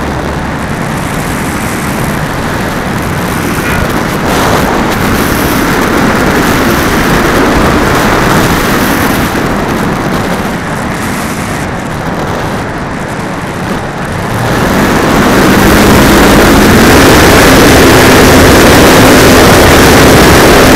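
Onboard sound of an RC model airplane in flight: heavy wind rush on the microphone mixed with the propeller and motor running. About two-thirds of the way through it becomes much louder and a low steady hum comes through.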